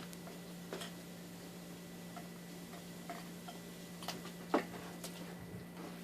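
A steady low hum with a handful of faint, scattered clicks and taps; the loudest tap comes about four and a half seconds in.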